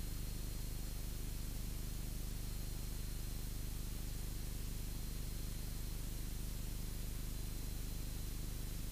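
Cessna 172's piston engine and propeller at climb power, a faint, steady low drone with an even hiss over it.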